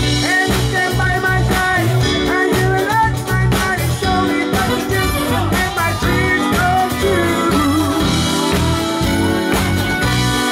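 Live cover band playing a dance song: singers' voices over electric guitar, bass, keyboard and drums, with a steady beat.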